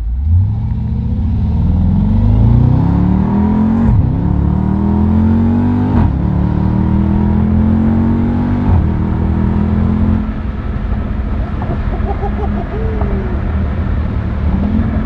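Jeep Grand Cherokee SRT's HEMI V8 accelerating hard through the gears: the engine note climbs, falls at each of three upshifts a couple of seconds apart, then settles into a steady cruise about ten seconds in.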